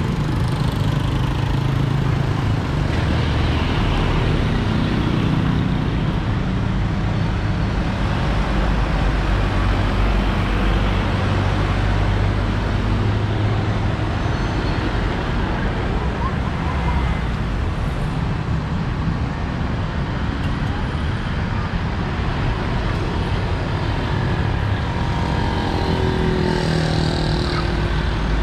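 Road traffic: cars and motorcycles driving past, a steady low rumble of engines and tyres.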